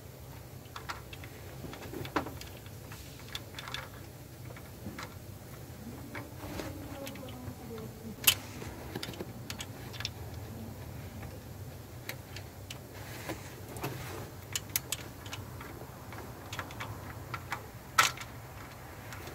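Light, irregular metallic clicks and clinks of a steel double-row timing chain on a Nissan YD25 diesel engine being handled over its sprockets by gloved hands, with two sharper clicks, one midway and one near the end.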